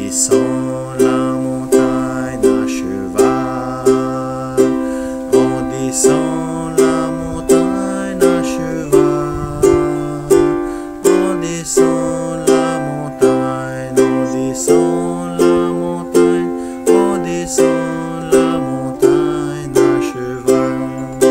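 Ukulele strummed in a steady two-beat march rhythm on the chords C, F and G7, with a man's low voice singing along under the strums.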